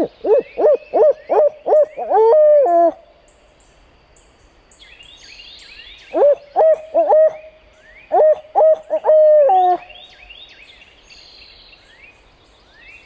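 Barred owl hoot imitated on an owl locator call, sounded to make a turkey gobble: two series of rapid rhythmic hoots, each ending in a long drawn-out note, the second starting about six seconds in.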